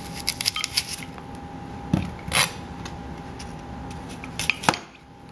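Chef's knife cutting the cores out of apple quarters on a cutting board: scattered light knocks and scrapes of the blade on the board, with a louder knock about two seconds in and more near the end. A faint steady whine runs underneath.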